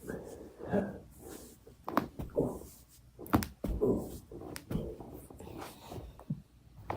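A human back being cracked by hand during an amateur spinal manipulation: several sharp popping cracks of the spine joints, one about two seconds in and a quick pair about a second later, with softer rustling and breaths in between.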